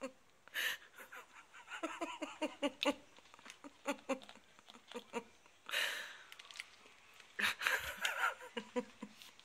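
A person laughing in short, breathy bursts of quick pulses, with a few brief rustles in between.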